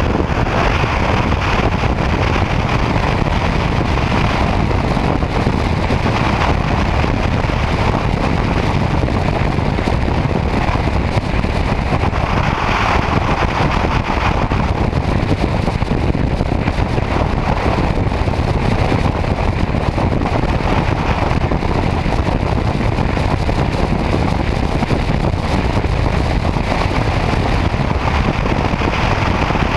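Steady wind rush and road noise from a motorcycle cruising at highway speed, with no letup.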